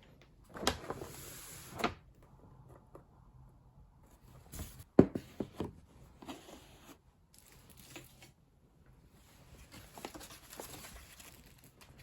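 Handling noises in a small room: bursts of rustling, with a sharp click or knock about five seconds in.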